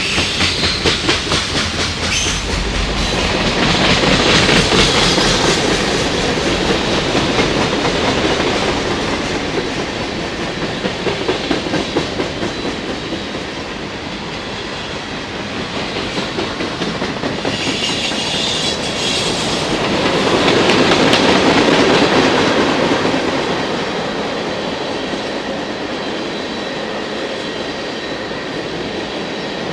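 Freight cars of a long CSX train rolling past, their wheels clacking rhythmically over the rail joints, the noise swelling and easing as cars go by. A brief high-pitched wheel squeal rises about two-thirds of the way through.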